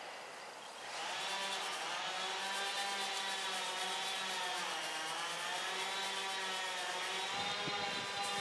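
A small electric motor, most likely a machine polisher, runs steadily. Its pitch sags a little about halfway through and comes back up, as if load is put on it.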